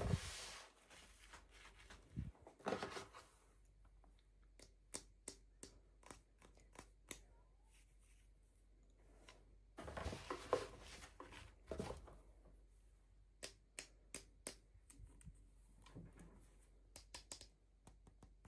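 Quiet unboxing handling sounds: packaging rustling and tearing in a few short stretches, between scattered small clicks and taps of little plastic pieces being handled.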